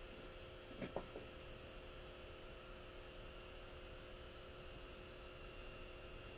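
Faint steady hum and hiss, with a couple of small clicks about a second in.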